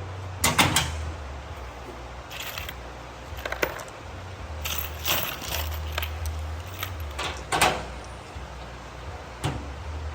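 Steel bolts clinking and clicking as they are handled and clipped into slots on a drum mower's metal shields: irregular sharp metallic knocks, several a few seconds apart, over a steady low hum.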